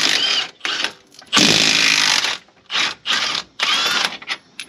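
Power tool run in repeated bursts, some about a second long and some short, loosening and backing out two large 22 mm bolts.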